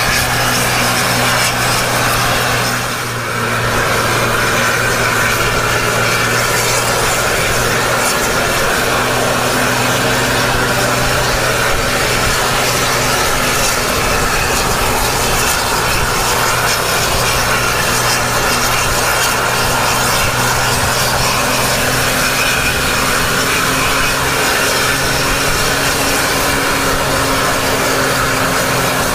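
Diesel tour bus engine pulling uphill under load, heard from close behind, mixed with a steady rushing noise. It is a constant low drone with a brief dip about three seconds in.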